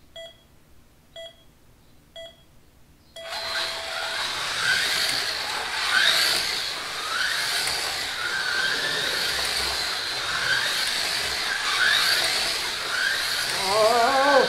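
A race start signal sounds three short beeps about a second apart, then a longer beep. Two Pioneer slot cars then take off, their small electric motors whining around the track, the pitch rising again and again as they speed up.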